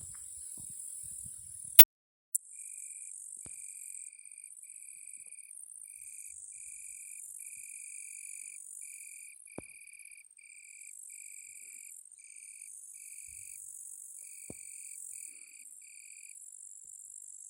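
Crickets singing: a steady high chorus of insects, and from about three seconds in a closer cricket giving a run of short ringing trills, about one and a half a second, which stops near the end. A sharp click about two seconds in, with a moment's gap in the sound after it.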